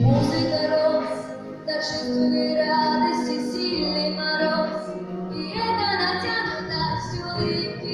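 A solo female voice singing a song over instrumental accompaniment, holding long notes.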